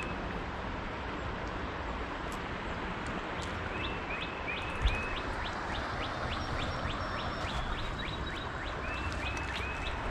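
Small birds calling over the steady rush of creek water: short notes in groups of three near the start, middle and end, and a quick run of chips in between. A single knock sounds about five seconds in.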